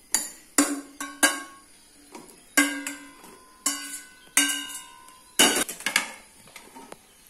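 A steel spoon scraping and knocking against a stainless steel kadai and a steel mixer-grinder jar: several sharp metallic clinks at uneven intervals, each ringing briefly.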